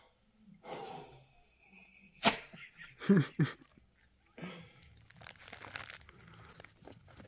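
Handling noise: rustling and scraping, with a few sharp knocks, the loudest two close together a little past the middle.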